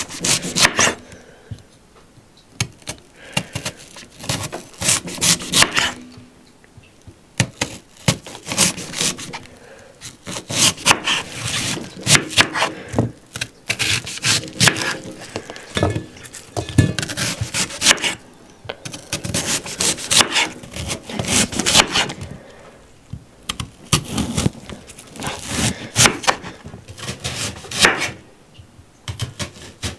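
Chef's knife slicing a peeled onion into thick rings on a wooden cutting board: crisp cuts, each ending in a knock of the blade on the wood, in irregular runs with short pauses.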